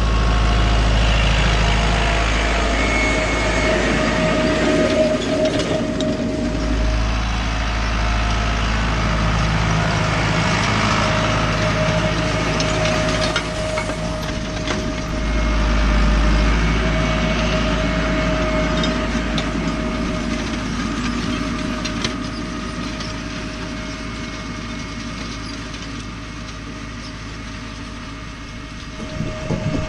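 Tractor engine running as it pulls a pneumatic precision seed drill sowing maize across the field, with a steady whine over the engine noise. It is loudest as it passes close by, then slowly fades as it drives away near the end.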